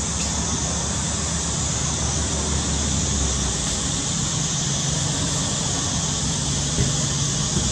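Steady outdoor background noise: a constant high hiss over a low rumble, with no distinct events.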